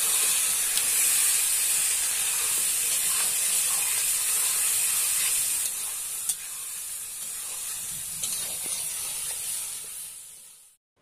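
Meat and spice pastes frying in hot oil in a black iron kadai, sizzling steadily while being stirred with a metal spatula, with a few light spatula knocks against the pan. The sizzle drops a little partway through and fades out just before the end.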